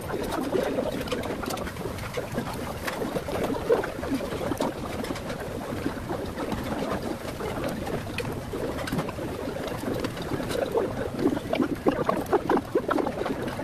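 Busy restaurant background noise: a steady mid-pitched hubbub, dotted with short clicks of a metal spoon and chopsticks against a ceramic bowl.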